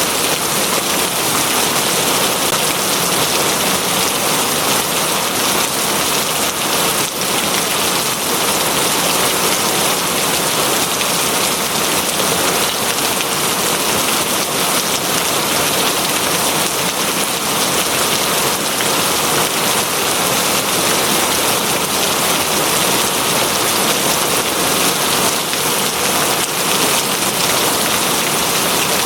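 Steady, heavy rain falling on a surface, a dense unbroken hiss.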